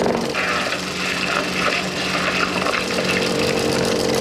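A steady buzzing drone with a rasping hiss that swells and breaks off in uneven pulses, produced sound design under animated graphics.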